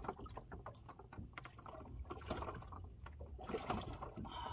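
Hands sloshing water in a bass boat's livewell while grabbing a fish, with scattered knocks and clicks against the tank and a louder splashy stretch near the end.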